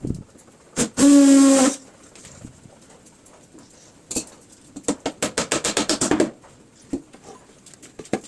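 A small power tool briefly whirs at a steady pitch about a second in, then a fast rattle of clicks lasting about a second follows later, with scattered knocks on wood.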